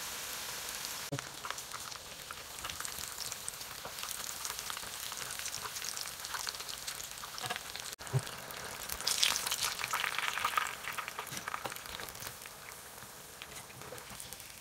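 Breadcrumb-coated fish fillets deep-frying in hot oil in a pan: a steady sizzle with many small popping crackles, louder for a stretch about nine to ten seconds in.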